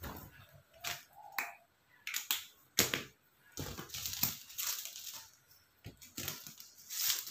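Hands handling small objects: scattered sharp clicks, the loudest a little under three seconds in, and short stretches of rustling as a pen, paper and a measuring tape are handled.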